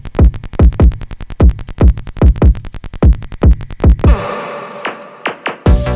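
Dark electronic techno track: a drum-machine kick drum about two and a half beats a second with ticking hi-hats between. About four seconds in the kick drops out for a short break of held synth and a few sweeping strokes, and the beat comes back with a bass line near the end.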